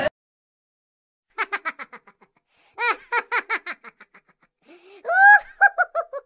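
High-pitched giggling laughter in three bursts of quick ha-ha pulses, starting about a second in.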